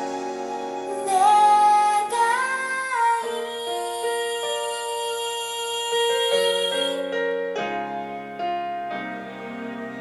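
A piano ballad with a female voice playing back through a 16 cm full-range speaker driven by a tube amplifier, picked up in the room: a held, wavering sung note over piano in the first few seconds, then sustained piano chords.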